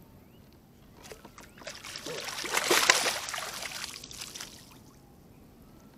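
Water splashing and streaming off a landing net as a hooked bass is scooped from the lake and lifted out. It builds about two seconds in, is loudest near the middle and fades out over the next second or two.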